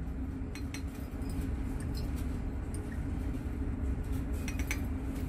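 Faint, scattered glassy clinks as a glass Erlenmeyer flask is swirled by hand, over a steady low hum.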